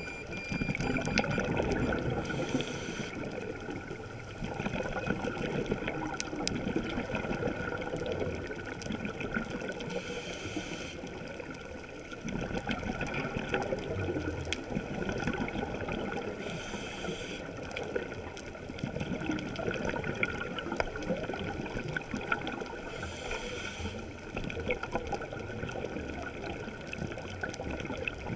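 Scuba diver's regulator breathing, heard underwater through a GoPro Hero 3's housing: bubbling and crackling, with a short hiss about every six to seven seconds.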